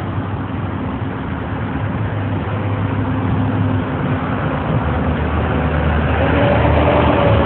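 A steady low engine rumble, as from an idling vehicle, with a higher hum joining about six seconds in and the level slowly rising.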